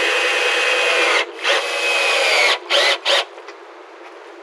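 Power drill running into wood: one run that stops about a second in, then four short bursts, the motor's whine sagging in pitch under load near the end of the longest one.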